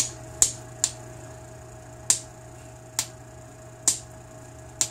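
Hammer stone striking the edge of an obsidian preform, knocking off short flakes to turn the edge: about seven sharp, bright clicks, irregularly spaced roughly half a second to a second apart.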